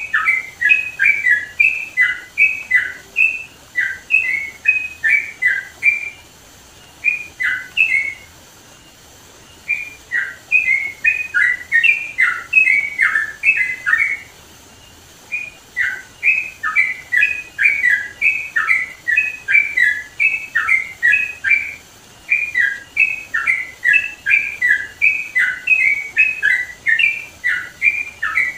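Yellow-vented bulbul (trucukan) singing loudly: quick runs of short chirped notes, phrase after phrase, broken by two pauses of about two seconds, one about a quarter of the way in and one near the middle.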